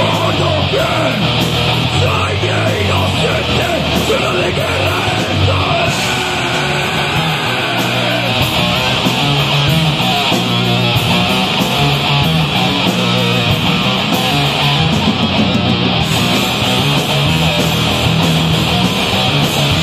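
Heavy metal band playing live: distorted electric guitars over a drum kit, loud and continuous.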